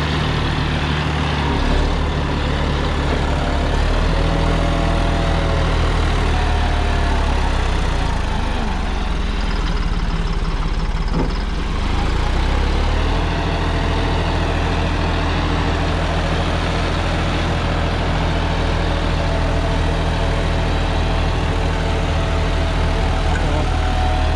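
John Deere 5405 tractor's three-cylinder diesel engine running steadily under load at about 1600 rpm, driving a 10-foot rotavator through the PTO as it tills soil in second gear.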